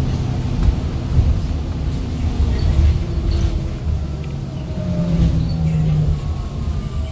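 City bus in motion, heard from inside the cabin: a steady low rumble of motor and road noise, with a humming tone that rises and falls in pitch in the second half.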